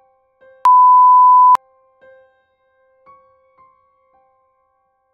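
A loud, steady one-note electronic beep lasting about a second, starting and stopping abruptly, over soft, sparse piano background music.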